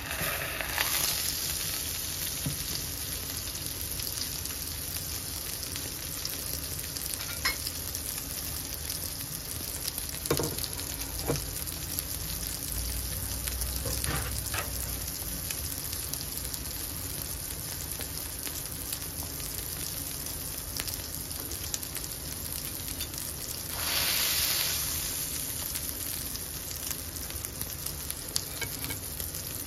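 Beef burger patty sizzling steadily in hot fat in a cast-iron skillet, with a few sharp pops of spitting fat and a brief louder swell of hiss near the end.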